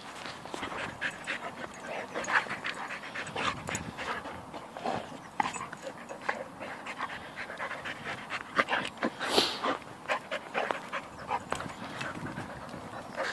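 Two young dogs play-wrestling at close range, panting heavily amid irregular scuffling and snuffling noises, with one louder brief noise about nine seconds in.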